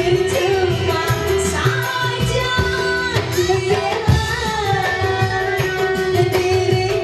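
Live dangdut band music: a woman singing a wavering melody into a microphone over keyboard and a steady drum beat.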